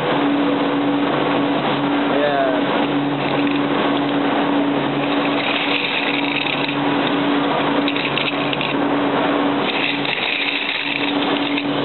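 Steady machinery running: a constant low hum with an even noise over it.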